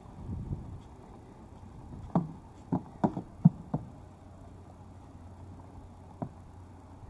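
A Kentucky Mountain mare's hooves knocking on a round pedestal platform as she steps up onto it: a cluster of about six sharp knocks from about two seconds in, then one more knock near the end as she shifts her footing.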